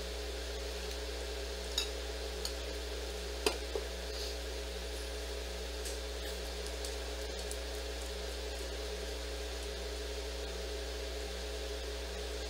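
Steady room tone of electrical hum and hiss, with a few light, sharp clicks about two and three and a half seconds in.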